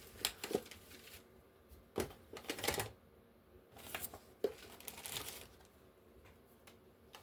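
Craft supplies and papers being rummaged through on a table: scattered light clicks, knocks and paper rustles in small clusters, with quiet gaps between.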